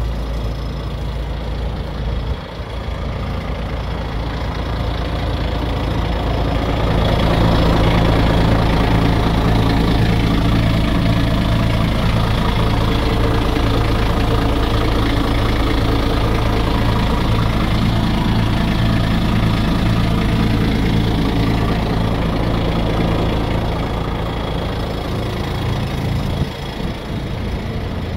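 Renault G300 fire truck's diesel engine idling steadily. It grows louder about six seconds in and eases off near the end.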